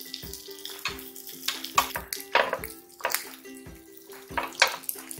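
Metal spatula scraping and clicking against a nonstick mini-uttapam pan several times at irregular intervals as the uttapams are flipped, over background music.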